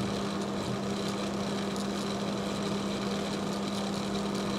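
Steady low machine hum with an even drone. Faint, light scratches of a blade scraping the enamel off a thin copper wire sound now and then above it.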